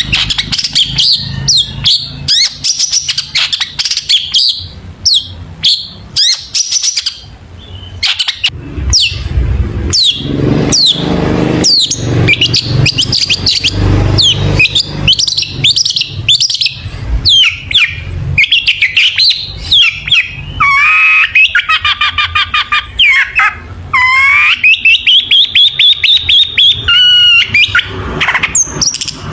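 Long-tailed shrike (cendet) singing a fast, varied song of sharp chirps and whistled glides, packed with mimicked phrases, with quick runs of repeated notes and a longer held note in the last third.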